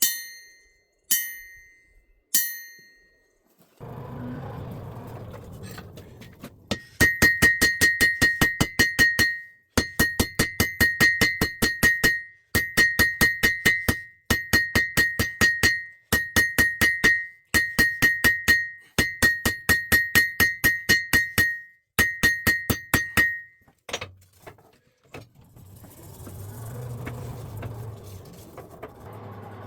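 Hammer blows on the face of a welded composite anvil (Hay-Budden upper on a Mousehole base), each ringing with a clear, high tone. There are three single blows whose ring is left to die away, then a series of quick runs of bouncing strikes, about five a second, testing the anvil's rebound.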